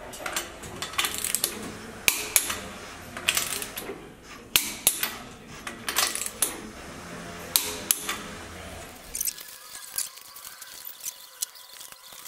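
Hand ratchet wrench clicking and its socket clinking metal on metal as bolts are turned in the cylinder head of a Subaru EJ22 boxer engine, in sharp, irregular clicks. About nine seconds in the clicking stops suddenly and only a low hiss remains.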